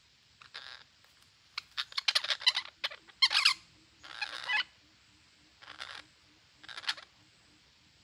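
Parakeets squawking in harsh, screechy calls: a quick run of squawks about two to three and a half seconds in, then a few single calls spaced out toward the end.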